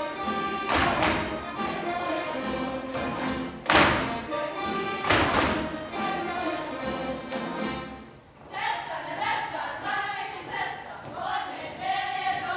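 Tamburica band playing a Međimurje folk dance tune, with three loud stamps of the dancers' boots on the stage floor in the first six seconds. About eight seconds in there is a short lull, then a group of voices sings together.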